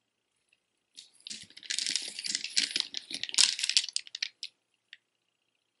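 Strands of large hard beads, taken to be nuts, clacking and rattling against each other as a necklace and bracelet are handled and gathered up. It is a dense run of clicks starting about a second in and dying away after about four seconds.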